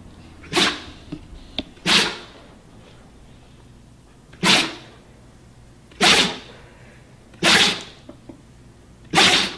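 A fit of six loud sneezes, one after another, spaced roughly a second and a half to two and a half seconds apart, with a couple of faint short clicks between the first two.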